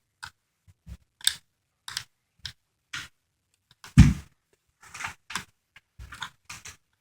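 Small irregular clicks and taps of a screwdriver working a screw out of the plastic back of an RCA 10-inch tablet, with one heavier knock about four seconds in.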